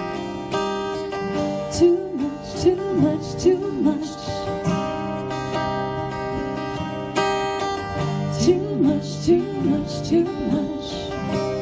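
Several acoustic guitars strumming chords together, with a woman's voice singing short wordless phrases that slide up and down. The sliding phrases come in two groups, a couple of seconds in and again near the end.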